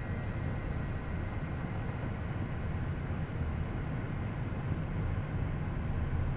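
Steady low rumble of Gulfstream G550 cockpit noise on the ground, with its Rolls-Royce jet engines running, plus faint steady tones above the rumble.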